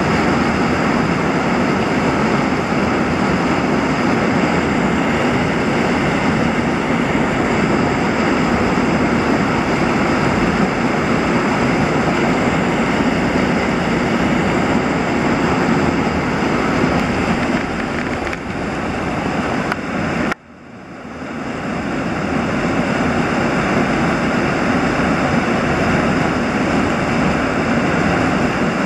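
Loud, steady rush of fast, churning white water. It cuts out suddenly about twenty seconds in and swells back over a couple of seconds.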